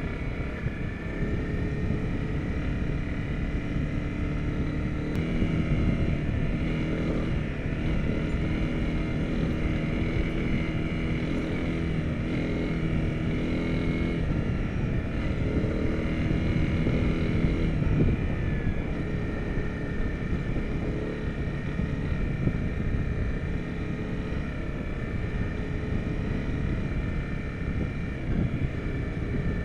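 Honda CRF250 Rally's single-cylinder four-stroke engine running as the bike rides along a dirt track, its note rising and falling with throttle changes a few times.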